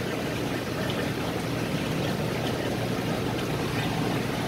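Steady aquarium water noise: the tank's filtration or aeration running with a low hum and an even wash of moving water.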